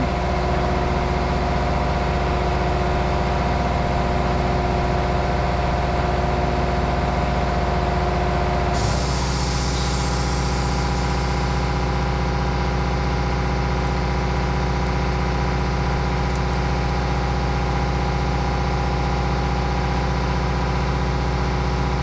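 A machine running with a steady hum. About nine seconds in, a hiss starts, fades over a few seconds, and the hum's tone shifts slightly at the same moment.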